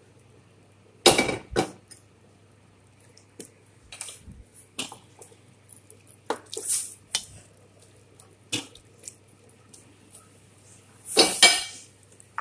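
A utensil clanking and scraping against a metal cooking pot while chunks of vegetables are stirred into simmering broth. There are scattered knocks, with the loudest clatters about a second in and again near the end.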